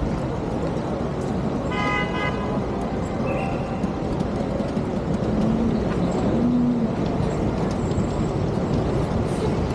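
Busy city street traffic heard from a bicycle, with a short car horn honk about two seconds in and vehicle engines running.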